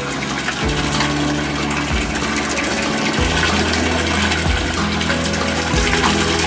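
Water rushing and splashing in a bait barrel as a dip net of cocahoe minnows is emptied into it, over a steady low hum.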